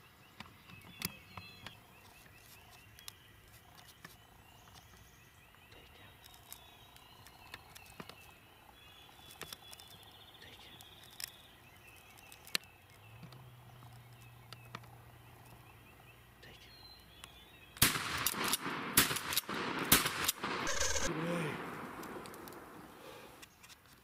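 Faint birdsong, then near the end a shotgun fired three times in quick succession at a wild turkey.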